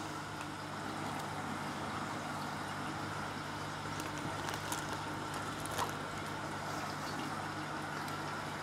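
Steady low electrical hum with an even hiss, like running equipment, with a few faint short clicks about four to six seconds in.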